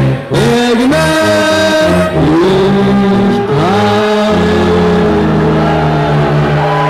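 Bavarian brass band playing while many voices sing along in long held notes that slide from one pitch to the next, over a steady low bass line.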